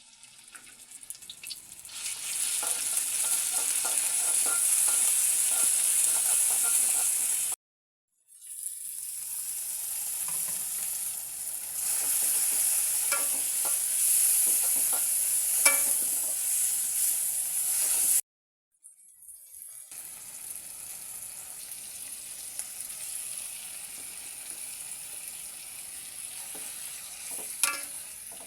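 Squid sizzling as it is stir-fried in a pan, with a utensil clicking and scraping against the pan now and then. The sizzling cuts out abruptly twice, about 8 and 18 seconds in, and is quieter after the second break.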